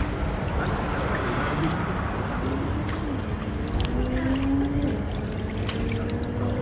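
A distant motor droning over a low steady rumble, its pitch slowly rising and falling, with a few faint clicks.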